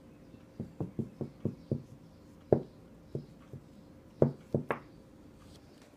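Soft knocks and taps of plastic toy dolls being hopped and set down on a cloth-covered table: a dozen or so short knocks in quick runs, the loudest about two and a half and four seconds in.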